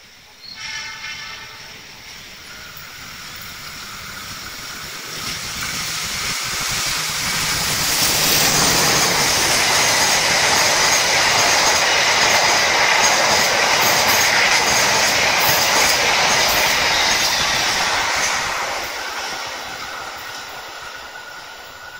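Argo Wilis express passenger train, diesel-hauled with stainless-steel coaches, passing close by on the rails. A short horn blast comes about half a second in. Then the wheel-on-rail rumble and clatter builds to its loudest as the coaches go past and fades as the train moves away.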